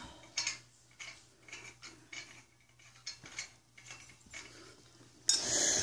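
Light, scattered clicks and taps of small metal screws being handled and fitted into a plastic Christmas tree stand, metal knocking on plastic. Near the end a louder rush of noise comes in.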